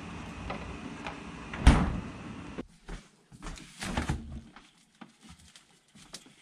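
A refrigerator door swung shut with one solid thud about two seconds in. A steady background hum stops shortly after, then a few lighter knocks and rustles as another fridge door is pulled open.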